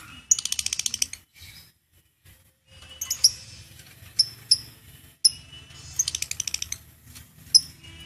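Caged lovebird chattering: two short, very fast trills of sharp high notes, one near the start and one about six seconds in, with single shrill chirps between them.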